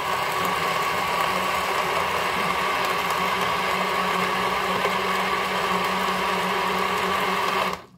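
NutriBullet blender motor running steadily, blending ice cream, milk and vodka, with a constant low hum under the whirr; it cuts off abruptly just before the end.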